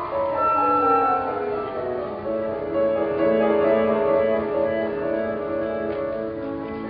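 A string ensemble of violins and double bass playing: a run of notes falls over the first two seconds, then bowed chords are held. About six seconds in, shorter separate notes begin as the violinists switch to plucking their strings.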